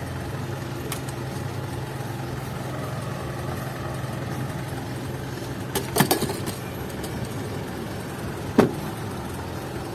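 Motor vehicle engine running with a steady low hum while driving. A quick cluster of sharp knocks or rattles comes about six seconds in, and a single knock follows a couple of seconds later.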